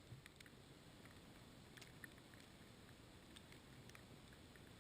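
Near silence: faint outdoor hiss with a few faint, scattered clicks.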